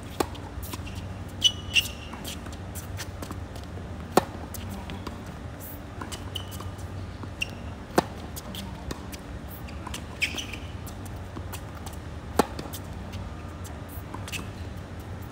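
Tennis rally on a hard court: sharp racket strikes on the ball about every two seconds, with a few short high squeaks between them.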